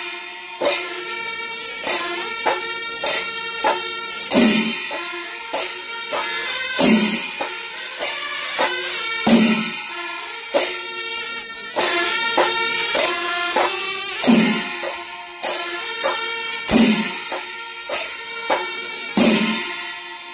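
Kerala temple melam: massed chenda drums and ilathalam hand cymbals with wind instruments holding sustained notes. Heavy accented beats come about every two and a half seconds over a busier running rhythm.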